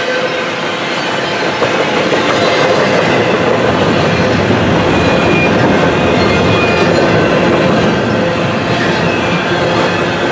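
Double-stack intermodal well cars of a freight train rolling past at speed: a steady, loud rumble and clatter of steel wheels on rail, with faint high squealing tones over it.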